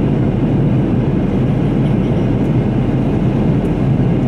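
Steady low rumble of a jet airliner in flight, heard from inside the cabin: engine and airflow noise, even and unbroken.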